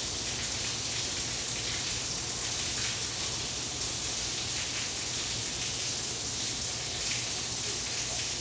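Steady hiss of background noise with a low hum underneath, even throughout with no distinct events.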